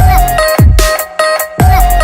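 Electronic dance music with heavy bass kicks, a steady beat and a synth line, dropping out briefly about a second in.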